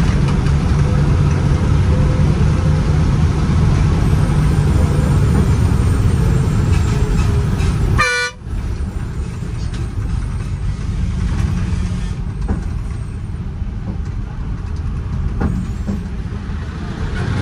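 KSRTC Sarige bus's diesel engine running steadily as the bus drives, with one short horn toot about eight seconds in. The sound drops out briefly just after the toot.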